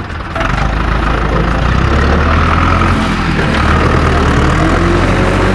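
Heavy engine idling, a steady low rumble.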